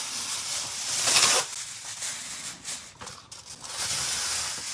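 Cheap aluminum foil rustling and crinkling as it is pulled out and laid over a sheet pan, loudest about a second in.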